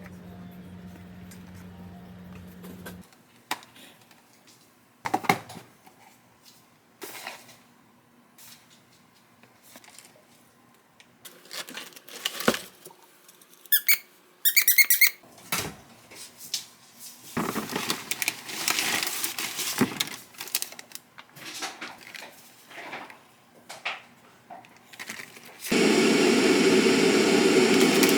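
Kitchen handling sounds: scattered clicks, knocks and clatter of utensils and containers, with a brief squeaking near the middle. A loud steady rushing noise starts about two and a half seconds before the end.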